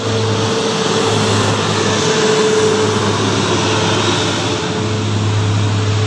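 Tour bus driving past: steady engine drone with a low hum and a constant whine over loud road noise.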